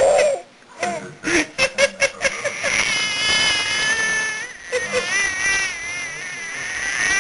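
A person making a strange laughing noise: short giggle-like bursts, then a long, high-pitched, wavering squeal held for about four seconds.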